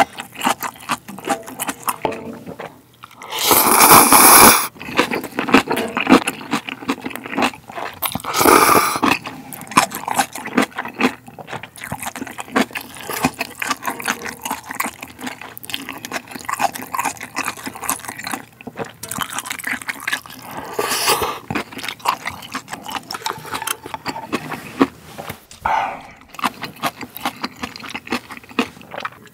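Close-miked eating sounds of spicy ramen with octopus: wet chewing and mouth clicks throughout, with two long, loud slurps about four and nine seconds in and shorter ones later.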